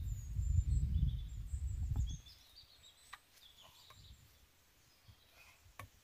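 A loud low rumble on the microphone that stops abruptly about two seconds in. Then quiet, with faint high bird chirps and a couple of light clicks.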